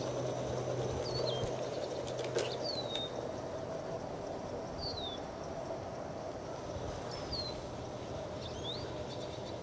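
A bird calling: short downward-slurred chirps, five in all, one every two seconds or so, over a steady outdoor background. A single sharp click a little over two seconds in.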